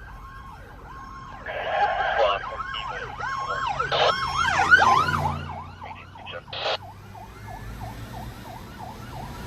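Fire truck sirens in a fast rising-and-falling yelp, more than one overlapping, growing louder to a peak about five seconds in and then fading away. A brief louder blast sounds about one and a half seconds in.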